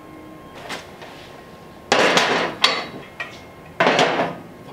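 Steel jack stands being set down and positioned under a motorcycle's fork legs: metal clanks and rattles. The loudest rattle comes about two seconds in and ends in a sharp knock, and another comes near the end.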